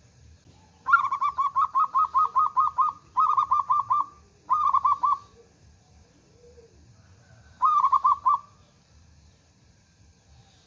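Zebra dove (perkutut) cooing: four runs of rapid, evenly spaced coo notes, about five a second, the first run lasting about two seconds and the others shorter, with a pause of a few seconds before the last.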